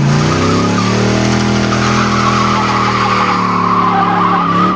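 Mid-1950s Chevrolet sedan doing a burnout: the engine is held at high revs while the spinning rear tyre squeals steadily. The revs drop briefly near the end.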